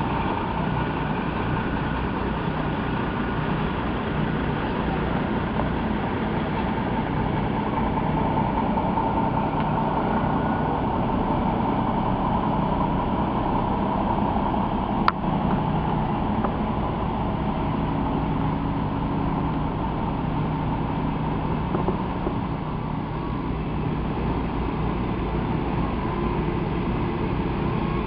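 Diesel engine of a semi truck creeping past at parade pace, a steady low drone as its long grain trailer rolls by, with a tractor's engine coming up behind. One sharp click about halfway through.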